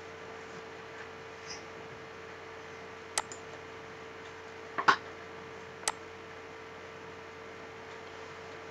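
Three short computer mouse clicks, about three, five and six seconds in, the middle one the loudest, over a steady electrical hum.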